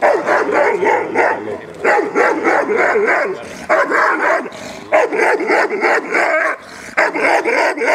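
A large dog barking hard and fast in quick runs, with short breaks between them. The barking is the excited barking of a dog worked up in a prey or bite game, straining on its leash toward a handler holding a toy.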